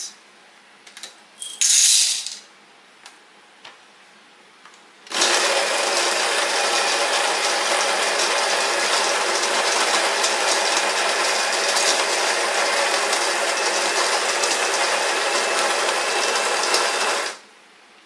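SMEG EGF03 espresso machine's built-in grinder grinding a dose of about 18 g of coffee beans into the portafilter: a steady, even grinding noise that starts about five seconds in, runs for about twelve seconds and stops abruptly. A short burst of noise comes about two seconds in, before the grinder starts.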